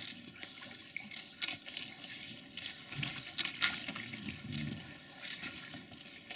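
Giant otters chewing fish in shallow water: wet sloshing and lapping, broken by sharp crunches of fish being bitten through, loudest about a second and a half in and twice close together past the middle.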